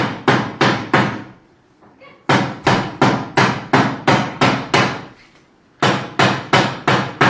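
Sharp knocks of a hard object being struck over and over, about three a second, in runs of several strikes broken by pauses of about a second.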